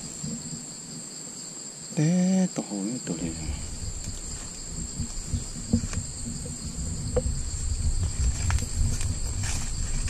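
Steady, high-pitched insect chorus droning at two pitches without a break, over low rumbling and scattered knocks from handling close to the microphone.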